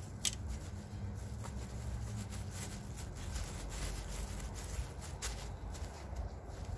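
Hands pressing soil and crinkling black plastic sheeting around sweet potato slips: soft rustling with a couple of sharp crackles, one just after the start and one about five seconds in, over a steady low rumble.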